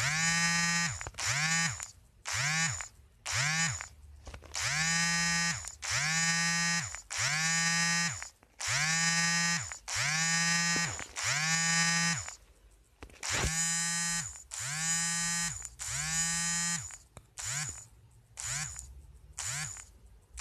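LG K7 smartphone's vibration motor buzzing in a repeating vibration pattern. Short pulses alternate with longer buzzes of about a second, with the phone's body rattling along.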